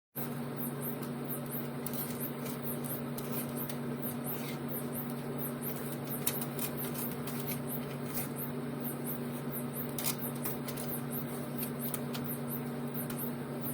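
A steady low mechanical hum with a hiss behind it, such as a fan or small motor, and a few light clicks and taps in the middle.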